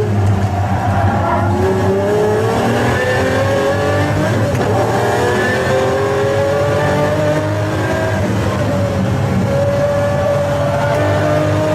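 Pagani Zonda F Clubsport's 7.3-litre V12 running hard under load, its pitch climbing slowly as it accelerates and then holding level near the end.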